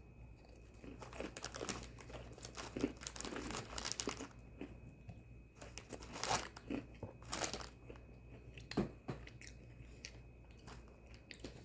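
A person chewing crunchy Oreo sandwich cookies close to the microphone, with irregular bursts of crunching.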